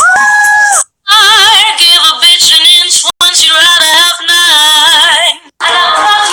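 A woman singing solo with wide, wavering vibrato and long held notes, recorded through a phone's Snapchat. The sound cuts out completely for a moment three times, at the joins between clips.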